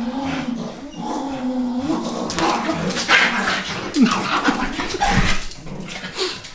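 Dachshund making drawn-out, wavering play growls while it tugs and wrestles with a towel. From about two seconds in, loud scuffling of the towel and the dog mixes with short yips and whines.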